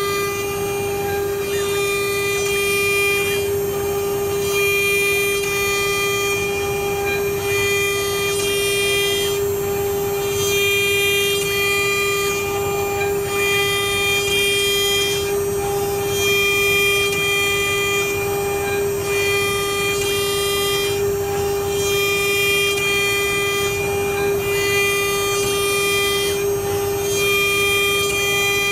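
A CNC wood-carving machine's high-speed spindle runs with a steady high whine while its small cutter shaves a turning wooden figure. The shaving hiss dips about every two seconds.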